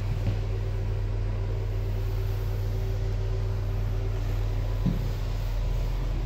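A steady low hum, even in level throughout, with two faint soft knocks, one just after the start and one about five seconds in.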